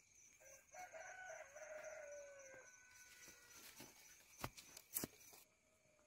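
A rooster crowing once, a call of about two seconds that drops in pitch at the end. A few seconds in come two sharp knocks about half a second apart.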